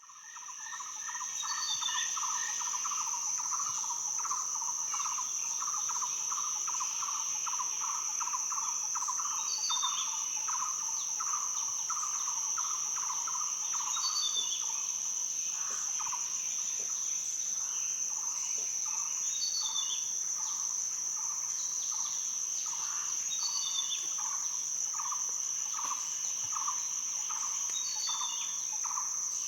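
Birds chirping in short, falling calls every few seconds over a steady, high-pitched insect trill, with a lower note pulsing about twice a second beneath.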